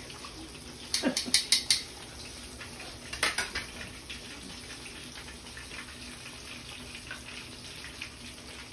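Battered fish frying in oil in a cast-iron skillet, a steady sizzle. Metal kitchen tongs clink against the pan and stovetop in a quick run about a second in and twice more about three seconds in.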